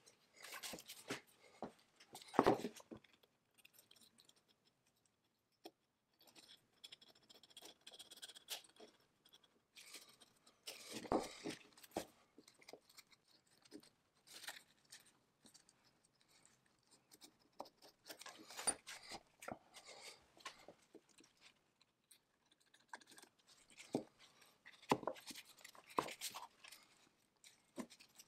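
Small metal parts being handled and worked by hand: scattered clicks, taps and scraping, with a few louder knocks about two, eleven and twenty-five seconds in.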